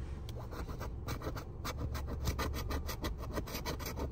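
A coin scraping the coating off a scratch-off lottery ticket in quick back-and-forth strokes. The strokes come thick and fast from about a second in, roughly six a second, over a low steady hum.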